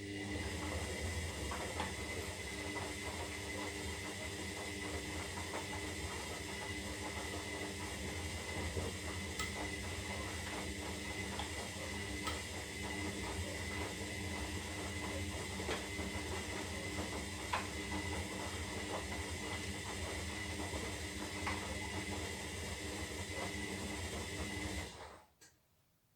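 Zanussi Lindo 300 washing machine partway through a synthetic wash cycle, giving a steady hiss over a low hum with a faint high whine and scattered small clicks. It comes on just at the start, holds for about 25 seconds, then cuts off suddenly near the end.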